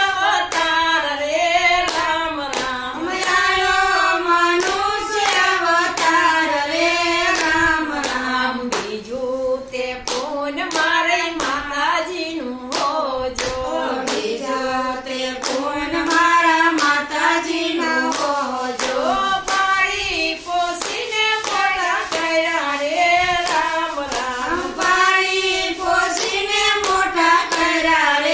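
Group of women singing a Gujarati bhajan together in unison, unaccompanied, keeping time with a steady rhythm of hand claps.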